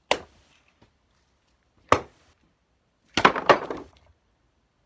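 Axe chopping into a firewood log on a chopping block: two sharp chops about two seconds apart, then a quick clatter of several knocks about three seconds in, the loudest part.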